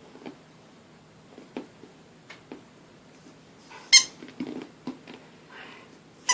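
A dog whining: a short high squeak about four seconds in, a low grumble just after it and another brief squeak near the end, between faint clicks and taps.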